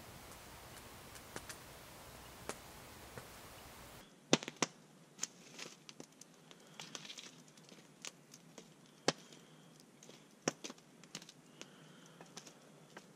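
Wood campfire crackling, with sharp pops and snaps at irregular intervals from about four seconds in. Before that there is only a faint hiss with a few soft ticks.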